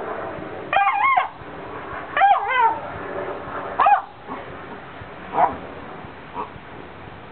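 Basset hound squeaking with joy: a series of short, high, wavering whines. Three loud ones come in the first four seconds, then two fainter ones.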